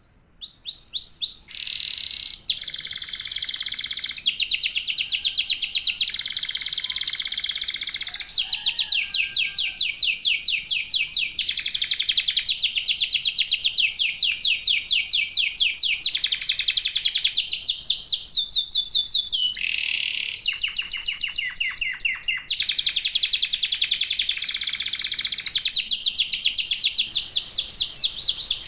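Domestic canary song: fast rolling trills of quickly repeated high notes, switching from one trill to the next every few seconds, starting about half a second in.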